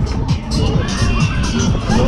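Loud fairground ride music with a heavy beat, with a crowd of riders shouting and cheering over it.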